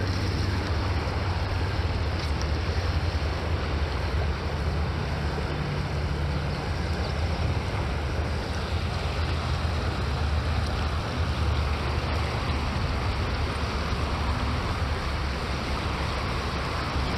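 Steady wind rumbling on the microphone over a constant hiss of water from a swollen river.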